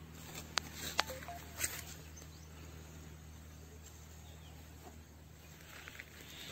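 Quiet rural outdoor ambience with a steady low hum. A few sharp clicks come in the first two seconds while the snake is carried and set down on grass.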